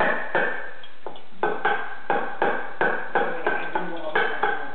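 Baby banging a small plastic Easter pail: a run of sharp knocks, about three a second, each with a brief ring.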